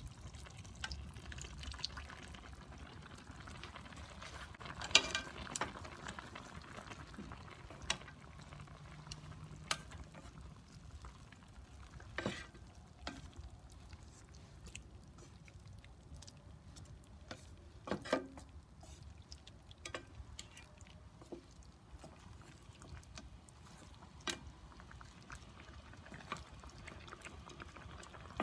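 Chicken drumsticks simmering in sauce in an electric skillet, a low steady bubbling, with scattered clicks and knocks of wooden chopsticks against the pan as the pieces are turned. The sharpest knock comes about five seconds in.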